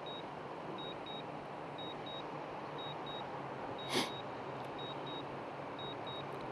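DJI drone remote controller beeping while the drone returns to home: short high double beeps repeating about once a second over a faint hiss. A brief sharp click about four seconds in.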